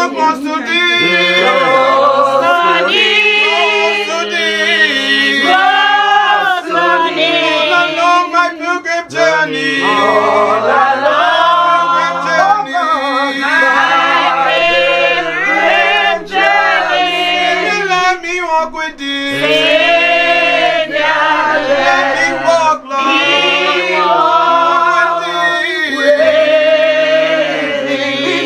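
A church congregation singing a hymn together, men's and women's voices, in long held notes.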